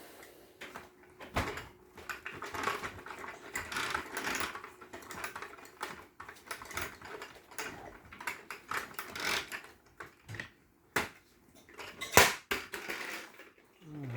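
Irregular tapping and clicking of small hard objects, with a few sharper knocks; the loudest knock comes about twelve seconds in.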